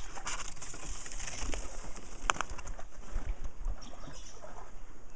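Reed leaves brushing and rustling against the canoe and camera as it pushes through them, with one sharp knock a little over two seconds in.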